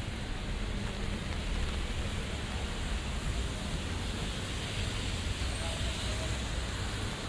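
Street ambience in light rain: a steady hiss of rain and of traffic on wet roads over a low rumble of passing vehicles.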